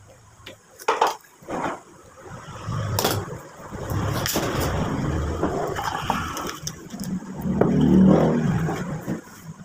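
Metal spoon clinking against a dish, with a few sharp clicks, then a steady low rumble that grows louder about eight seconds in.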